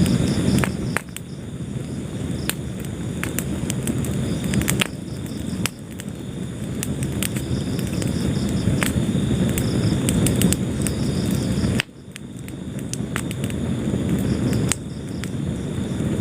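Wood fire burning in a fireplace: a low, steady roar of flame with frequent sharp crackles and pops from the burning logs. The roar dips suddenly a few times and swells back up.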